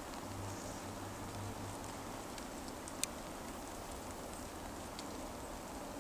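Steady outdoor background noise, with a faint low hum during the first two seconds and a single sharp click about three seconds in.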